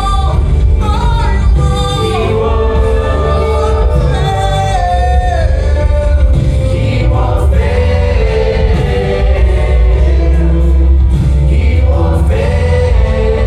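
Live gospel worship music: a group of singers with a full band, strong bass and drums underneath.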